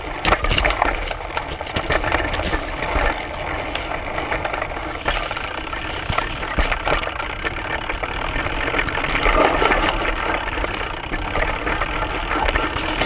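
Mountain bike riding fast along dirt singletrack: the front tyre rumbles over the trail while tall grass and brush swish against the wheel and fork, with frequent short knocks and rattles from bumps.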